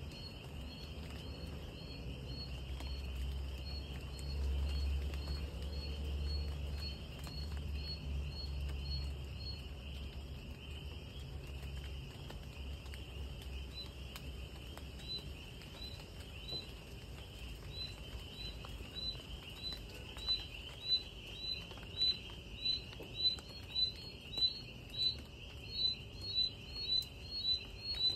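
Night-time insect chorus: a steady high cricket trill. Over it, a short chirp repeats at an even pace, growing louder and faster in the second half to one or two loud chirps a second. A low rumble sits underneath for the first twelve seconds or so.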